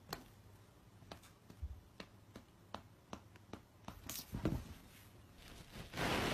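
Cats sparring on a sofa: faint, scattered taps and soft scuffling of paws, with a slightly louder scuffle about four seconds in and a short rush of noise near the end.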